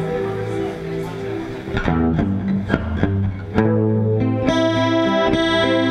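Blues band playing an instrumental intro live, led by guitar with a bass line, with sharp strummed chords from about two seconds in.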